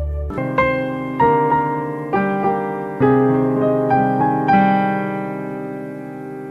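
Background piano music: single notes struck one after another in a slow melody, each ringing out and fading, the last one held and dying away near the end.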